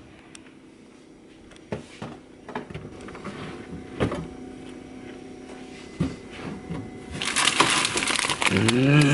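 Rummaging in a refrigerator: light knocks and clicks of items being moved on the glass shelves and in the drawer, then plastic packaging crinkling loudly for the last couple of seconds as a bag of pancakes is pulled out.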